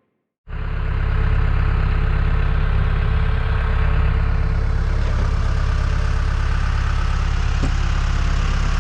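John Deere 310G backhoe's diesel engine running steadily, with a deep even drone. It comes in suddenly about half a second in after a moment of silence.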